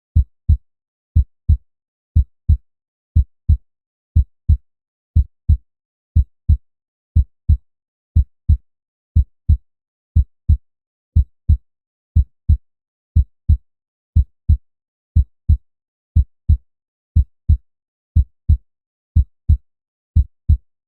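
Human heartbeat sound effect at 60 beats a minute: a low double thump, lub-dub, once a second, with silence between the beats.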